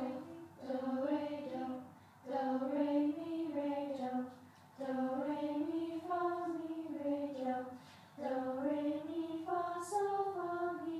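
A choir of young voices singing without accompaniment: held notes that move up and down in steps, in four short phrases with brief breaks between them.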